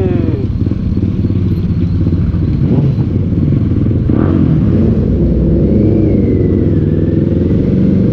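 Kawasaki Z800's inline-four engine running steadily as the motorcycle is ridden, a dense low rumble.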